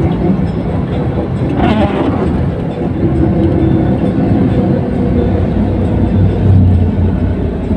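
Steady engine and road rumble heard from inside a moving car.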